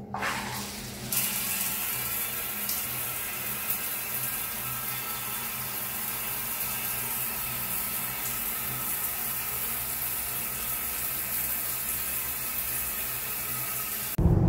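Overhead rain shower running: a steady hiss of falling water that comes on fully about a second in.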